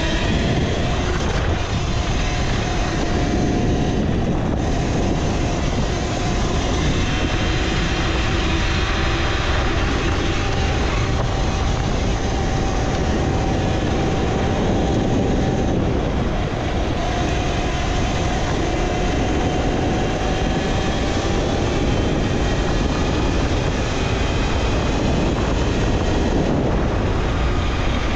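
Talaria Sting R electric dirt bike under way: the electric motor's whine, a single steady tone drifting slowly up and down in pitch with speed, over constant wind rush and road noise on the microphone.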